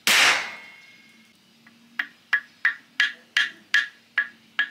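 A small sample of primary explosive going off under a hammer blow on a steel axe head: one sharp bang that rings away over about a second. From about two seconds in, the hammer taps lightly on the steel, about three taps a second.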